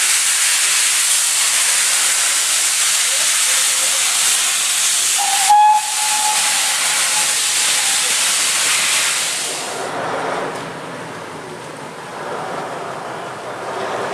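Steam locomotive venting steam close by, a loud steady hiss, with a short whistle note about five seconds in. After about ten seconds the hiss gives way to the quieter running of a small diesel shunter moving along the line.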